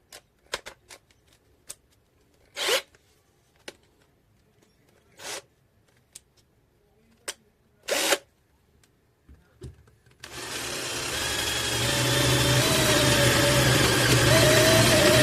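Clicks and handling knocks with three short bursts of noise, then about ten seconds in a cordless drill-driver's motor starts and runs steadily, with a low hum and a slightly wavering whine.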